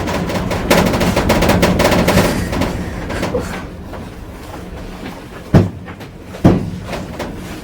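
Wind buffeting the microphone, easing off after about two and a half seconds. Near the end come two sharp thumps about a second apart.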